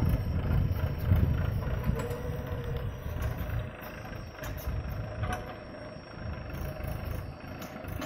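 Mahindra Yuvo tractor's diesel engine running as it pulls a loaded soil trolley away, the sound growing fainter.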